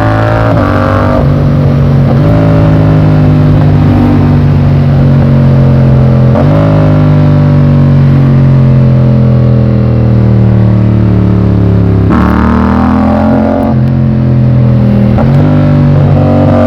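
Yamaha MT-07's parallel-twin engine pulling through the gears on the move: the revs climb and drop sharply at each gear change, fall slowly for several seconds in the middle as the bike rolls off, then pick up again near the end.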